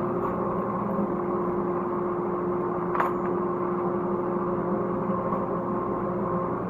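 Workshop dust collector, switched on by remote, running with a steady hum and a constant tone. A single sharp click about three seconds in.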